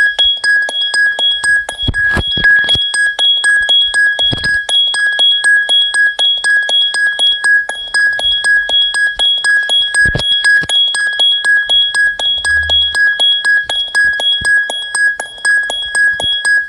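Electronic ringtone: a single high beep repeating steadily about two to three times a second, with a few faint knocks.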